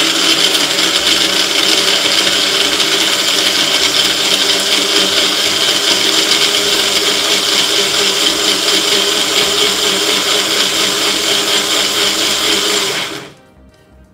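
Bullet-style personal blender running steadily, grinding carrot pieces, ginger, ice cubes and water into a purée, then cutting off suddenly about a second before the end.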